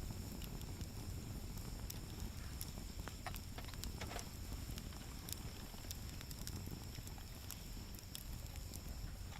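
Wood fire crackling in a fire stand: scattered sharp pops over a low, steady rumble.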